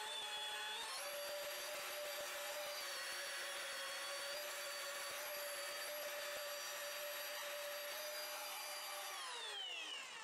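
Rotary polisher with a wool pad running at high speed, compounding a stainless steel exhaust pipe with coarse cutting compound. A steady motor whine steps up in speed about a second in and winds down near the end.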